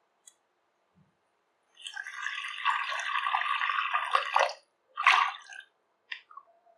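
Liquid poured into a cooking pan for about three seconds, then a shorter second pour, with a few small clicks of utensils.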